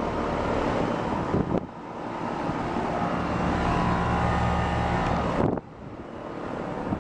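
Outdoor central air conditioner condensing units running: a Weather King with a Bristol compressor and a Lennox Merit with a Copeland compressor, giving a steady fan rush over a compressor hum. The sound breaks briefly about a second and a half in and drops sharply near the end.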